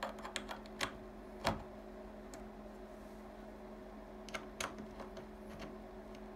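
Metal clicks and taps of BNC cable connectors being pushed on and twisted to lock onto the jacks of an aluminium test box: a quick run of clicks in the first second and a half, the loudest near its end, then a few more around four and a half seconds in. A steady low hum runs underneath.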